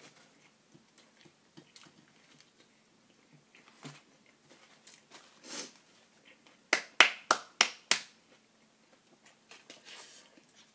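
Small clicks and rustles of food and wrappers being handled at a table, with a quick run of about six sharp snaps a little past the middle, from crackers and their packaging being handled.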